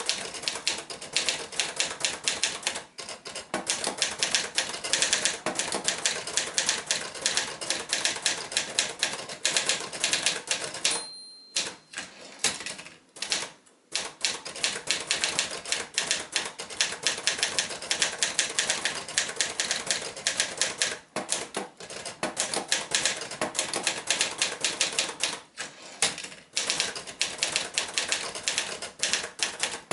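1973 Olivetti Studio 45 manual typewriter being typed on: a fast, continuous run of key strikes. About eleven seconds in, a short bell ding comes with a brief break in the typing, and then the typing resumes.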